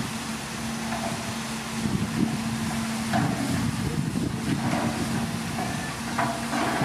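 Diesel engine of heavy earthmoving machinery running steadily under load, with a few brief higher-pitched sounds over it.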